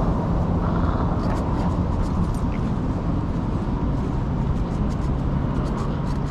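Steady low rumble, with light clicks and clinks from the spring pole's chain as the dog hangs and tugs on it, about a second in and again near the end.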